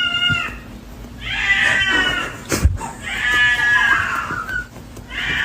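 A cat meowing in long, drawn-out calls, one after another, with a single sharp knock between two of them.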